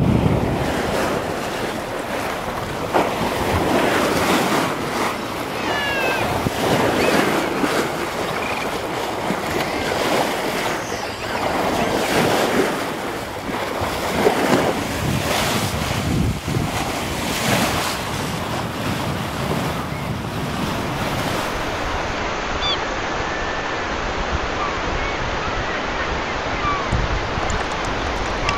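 Open-sea waves washing and splashing in uneven surges, with wind noise on the microphone.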